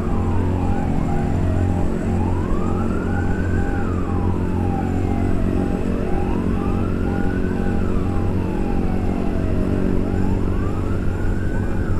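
A siren wailing slowly up and down, one rise and fall about every four seconds, with a steady rapid beeping alongside, over the low hum of a motorcycle engine running.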